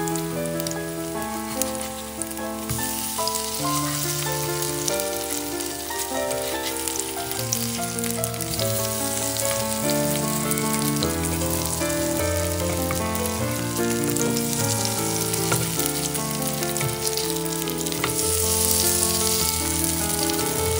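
Grated-potato pancakes sizzling and crackling as they fry in hot oil in a pan, the sizzle growing louder near the end. Background music with held notes plays throughout.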